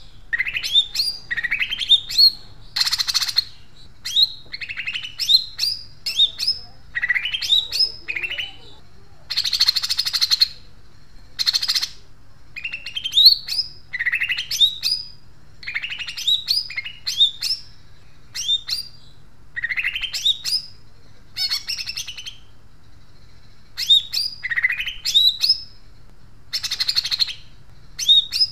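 Green leafbird (cucak ijo) singing loudly in repeated bursts of quick rising chattering notes. A few harsh, rough rasps break in, sparrow-like chatter in the style of a Eurasian tree sparrow that the bird has learned to mimic.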